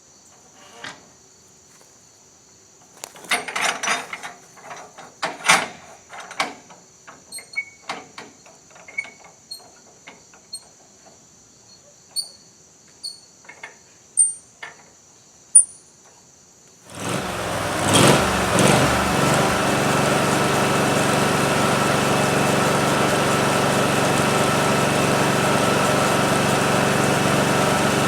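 Crickets chirping steadily under scattered knocks and clatter. About seventeen seconds in, the portable band sawmill's engine starts and settles into a steady idle.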